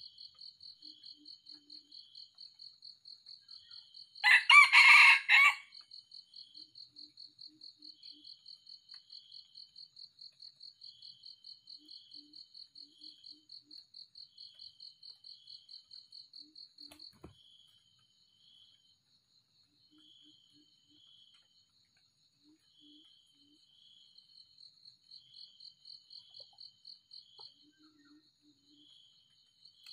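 A red junglefowl rooster crows once, about four seconds in, a short loud crow over the steady, rapid pulsing trill of insects. The insect trill stops about halfway through and picks up again near the end.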